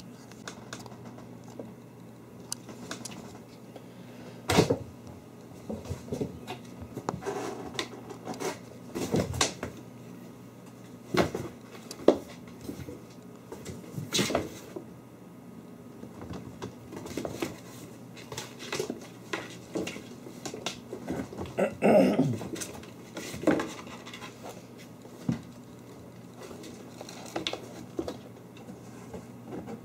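Kittens playing on a wooden floor: an irregular patter of small paws with scattered thumps and knocks as they dash, pounce and bump into things, over a faint steady low hum.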